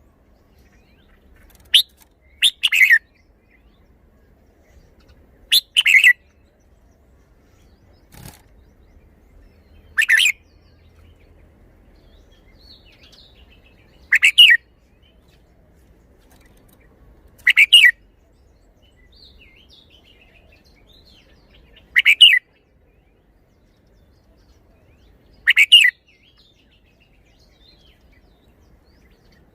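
Red-whiskered bulbul singing short, loud song phrases, one about every three to four seconds, with quiet in between. A faint click comes about eight seconds in.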